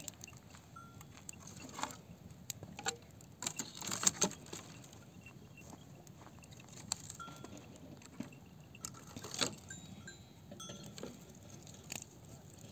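Dry brushwood branches clattering and snapping as they are piled onto a small wood fire and gathered up from the ground, with the loudest cluster of cracks about four seconds in and another near the end.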